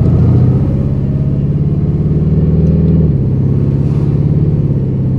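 Twin-turbocharged 427 LS V8 of a Camaro SS, heard from inside the cabin while driving, running with a steady deep note. About three seconds in, the note steps down in pitch and level.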